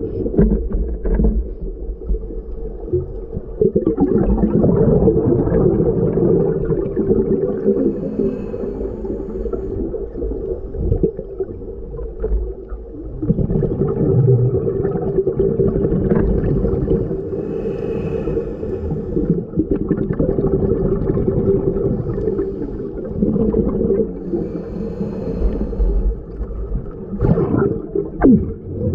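Scuba diver's regulator breathing underwater, with gurgling exhaust bubbles swelling every few seconds, all heard muffled and low.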